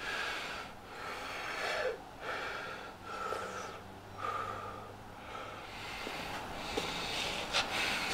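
A man breathing heavily, drawing and pushing out deep, noisy breaths about once a second.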